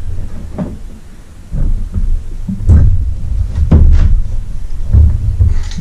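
Several knocks and clunks over low, uneven rumbling as a heavy Mercury 50 hp outboard motor is handled and tilted on its wooden stand.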